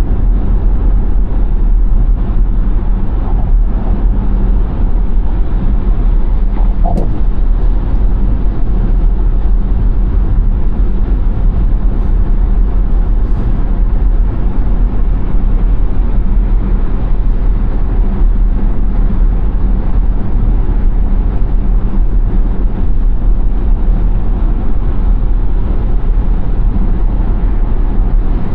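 A car driving at speed: a steady, loud rumble of tyres and road noise with no let-up.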